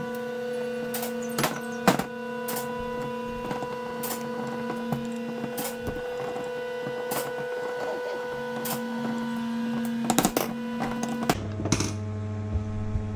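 Screwdriver and small metal parts clicking and tapping at irregular moments while a 1UZ-FE idle air control stepper motor is taken apart. A steady pitched hum runs under the clicks, and a deeper hum joins near the end.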